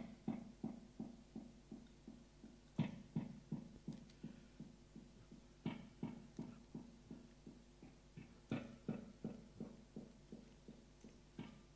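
Stage sound cue: a low pitched note struck about every three seconds, each strike followed by a quick train of fading echoes, about three a second, making an even pulse.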